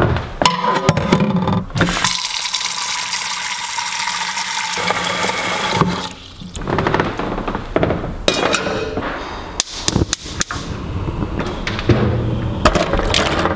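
Kitchen faucet running water into a stainless steel pot at the sink, a steady hiss for about four seconds that stops abruptly when the tap is shut off. Scattered clanks and knocks follow.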